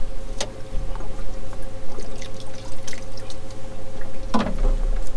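Water trickling and splashing over a steady hum, with small drips and a louder splash about four seconds in.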